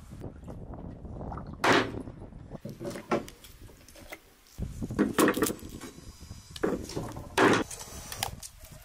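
Several heavy knocks at uneven intervals, with rubbing and scraping between them.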